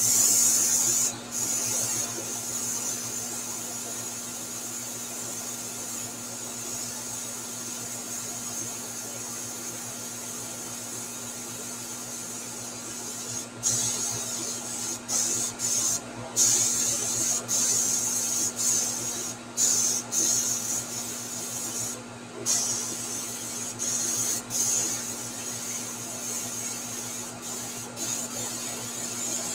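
Airbrush hissing as it sprays paint, loudest at the start and broken by several short stops in the second half. A steady low hum runs underneath.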